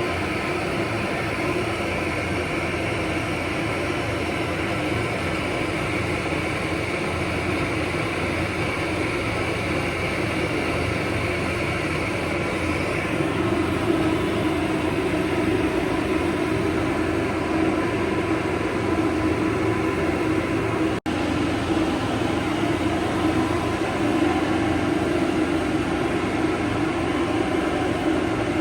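Hair dryer running steadily, a whooshing blow with a motor hum, cutting out for an instant about two-thirds of the way through.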